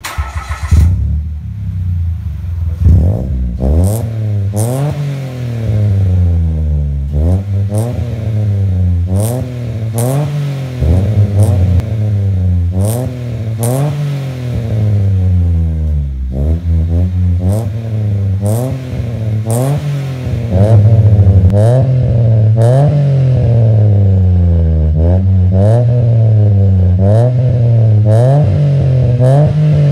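Exhaust of a 2015 Mitsubishi Mirage's three-cylinder engine through an aftermarket full exhaust system with dual tips, revved repeatedly while stationary, rising and falling about every one to two seconds up to around 6000 rpm, with occasional sharp cracks. It is louder and steadier in the last third, heard close to a tailpipe.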